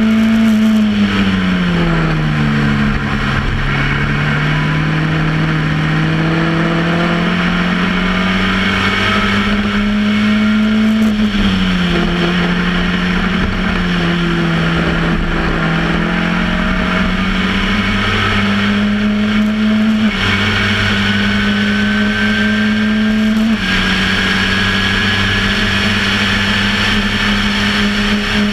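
Formula Ford 1600 racing car's 1.6-litre four-cylinder engine at racing speed, heard from on board the car. Its note drops about a second in, climbs steadily for about ten seconds, drops again, then changes pitch in two sudden steps near the end.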